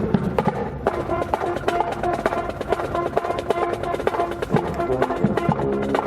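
Live fire department brass band playing an upbeat piece: held brass chords over quick, steady drum strokes.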